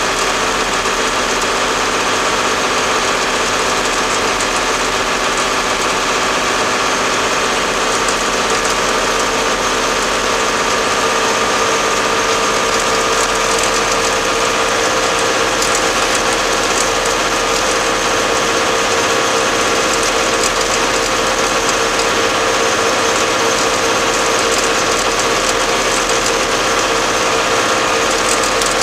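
Case 885XL tractor's diesel engine running steadily while driving on the road, heard close up beside the exhaust stack.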